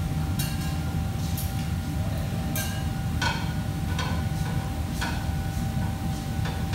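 Clinks and clatters of metal kitchenware every second or so, over a steady low hum of kitchen machinery or ventilation.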